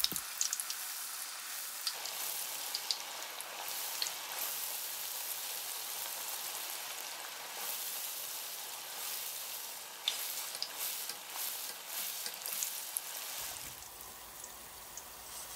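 Taro dumplings deep-frying in oil at 175 °C, just lowered in on a wire spider strainer: the oil sizzles steadily with scattered crackles and pops.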